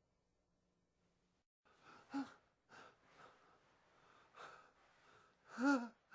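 A man breathing hard and gasping. It is quiet for about the first second and a half, then comes a run of quick, breathy gasps. Two of them carry his voice in a short rise and fall, and the one near the end is the loudest.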